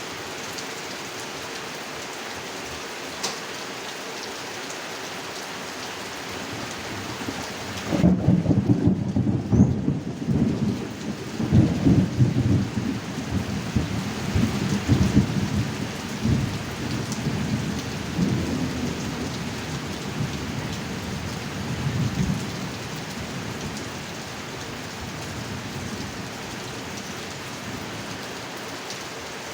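Steady heavy rain falling on a pond. About eight seconds in, a loud roll of thunder breaks in and rumbles on in several surges for about fifteen seconds before fading back under the rain.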